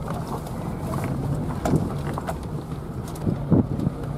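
Suzuki Sidekick 4x4 driving slowly over a rough dirt trail, heard from inside the cab: a steady engine hum with scattered knocks and rattles.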